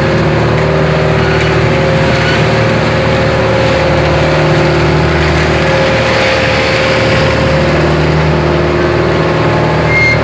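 A fishing boat's engine running steadily at an even speed, its pitch wavering only slightly.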